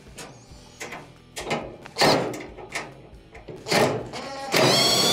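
A cordless drill/driver whirs for about half a second near the end, backing out a Phillips screw from the top of a dryer's front panel. Before it come a few knocks and clicks from handling the tool and the metal panel.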